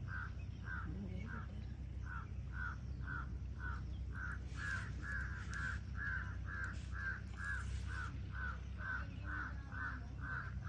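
An animal calling over and over in short, evenly spaced cries, about two or three a second, without a break.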